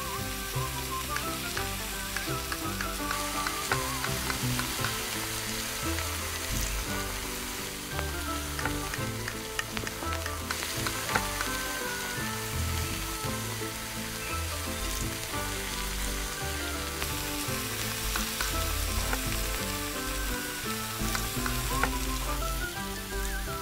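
Prawns and rice sizzling in a miniature steel pot, with a tiny spatula stirring and now and then scraping sharply against the metal. Background music plays steadily underneath.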